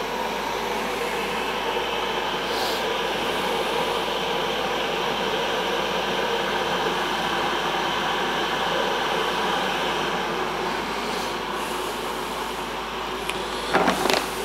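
Kettle heating water toward the boil: a steady rushing noise. A paper bag rustles near the end.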